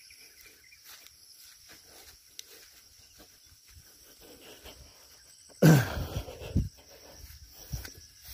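Footsteps through grass over a steady high drone of insects. About five and a half seconds in, a sudden loud burst of noise dies away over about a second.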